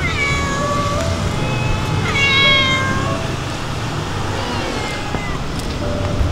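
Stray cats meowing for food: two loud meows that fall in pitch, one at the start and one about two seconds in, then a fainter one about four and a half seconds in.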